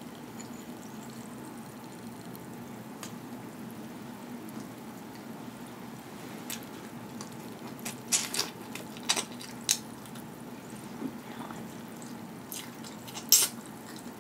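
Close-miked wet mouth sounds of eating snow crab meat: a handful of short, sharp sucks and smacks starting about six seconds in, the loudest near the end. Before that only a faint steady hum is heard.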